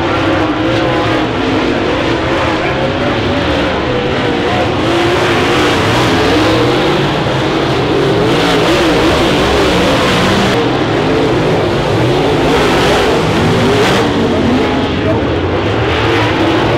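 Several dirt late model race cars running hard around a dirt oval, their engine notes rising and falling and overlapping as the cars go through the turns.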